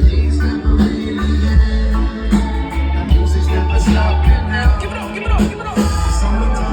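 Live reggae-rock band playing, with a heavy bass and drum beat and sung vocals.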